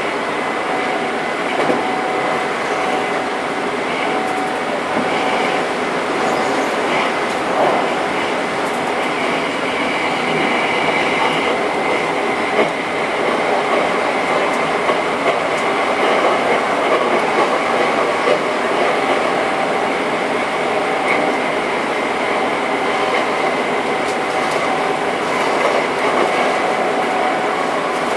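Hankyu electric train running on the rails, heard from inside the front cab: a steady rolling rumble and rattle with two steady high tones over it, and a few sharp clicks.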